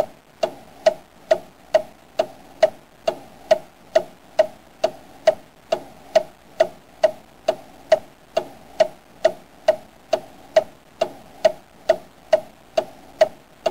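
Steady, evenly spaced ticking, a little over two ticks a second, each tick a short sharp knock.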